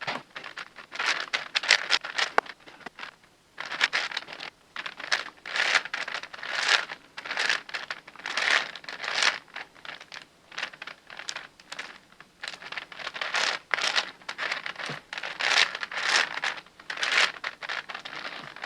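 A 10x10x10 Rubik's cube being turned by hand: its plastic layers scrape and click in short irregular runs with brief pauses.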